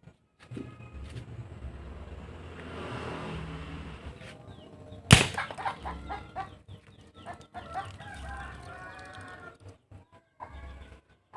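One sharp, loud bang about five seconds in: a homemade alcohol-fuelled mini gun firing. Chickens cluck and squawk around it, most busily just after the bang.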